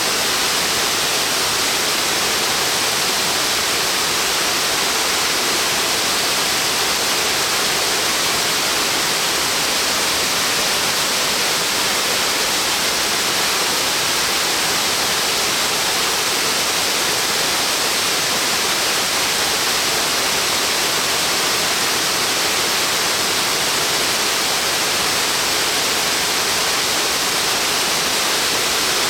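Uba Falls, a 111-metre-high, 40-metre-wide branching waterfall, giving a steady, unbroken hiss of falling water that never rises or falls.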